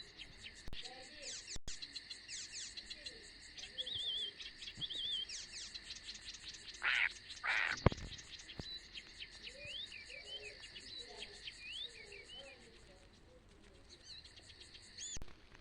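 Birds chirping and whistling in short warbling phrases over a steady high insect buzz, with a couple of brief louder rustling noises about seven to eight seconds in.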